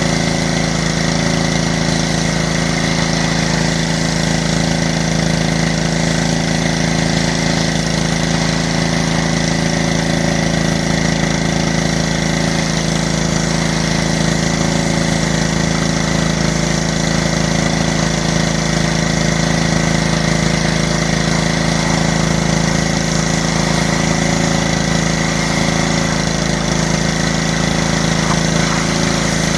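Engine-driven pressure washer running steadily at a constant pitch, with the hiss of the spray over it.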